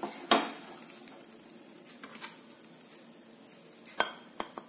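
A spatula knocks once against a nonstick pan and scrapes thick, freshly cooked mawa (milk-powder khoya), with faint sizzling from the still-hot pan after the gas is turned off. Three more sharp clicks come near the end as a glass bowl is brought to the pan.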